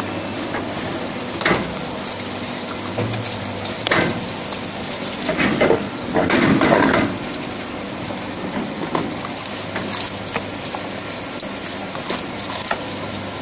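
Steady running noise of EVA sole moulding machinery with a constant high whine, broken by scattered knocks and clatter as the mould is opened and the moulded soles are handled, the busiest stretch about six seconds in.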